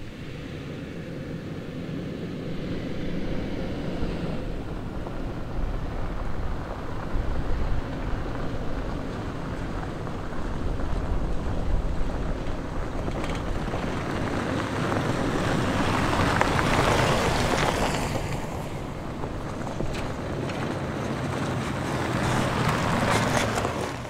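SUVs driving on a gravel dirt road: engine hum and tyre noise on gravel, swelling as a vehicle comes close and passes, loudest about two-thirds of the way through and again near the end.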